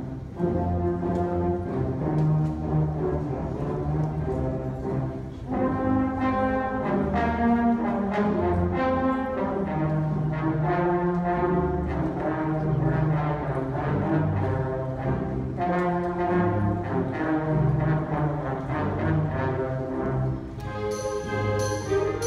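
A middle school concert band of woodwinds, brass and percussion playing a piece under a conductor. The sound grows fuller about five seconds in, and high, ringing percussion strikes come in near the end.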